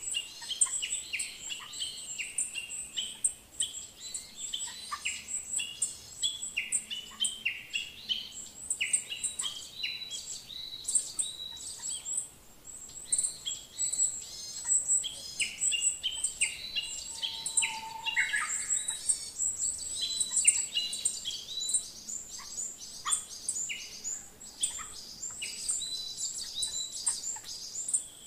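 Many birds chirping: a dense, continuous chorus of short, rapid, high-pitched calls, overlapping one another.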